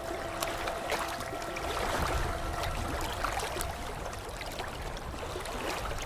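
Running water trickling and splashing steadily, with many small droplet ticks. Soft held musical notes sound under it and fade out about halfway through.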